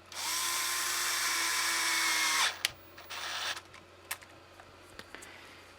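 Power drill-driver running steadily for about two and a half seconds, then a click and a second short run of about half a second, with a few light clicks after; it is driving small screws back into an RC truck's hinge pin block.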